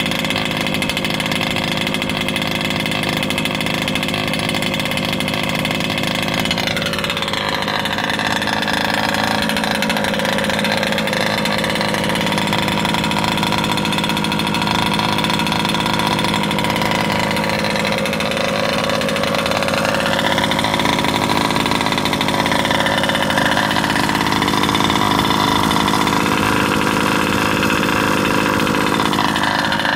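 ESP 34 two-stroke petrol engine of a 1/5-scale RC buggy running on its first start, idling a little rough because it is set very rich and still burning off assembly oil. Its speed wanders, dropping about a quarter of the way in, rising again past the middle and dipping near the end.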